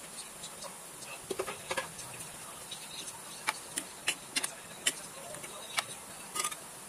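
A cooking utensil stirring chicken feet in a nonstick frying pan of simmering adobo sauce, clicking and knocking against the pan in a scatter of sharp taps, most between about one and a half and six and a half seconds in. A steady high hiss runs underneath.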